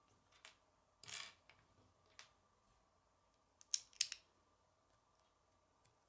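Plastic Lego bricks clicking and rubbing as a small brick-built parrot is handled and adjusted: a click, a short scraping rattle about a second in, another click, then a quick run of sharp clicks around four seconds in.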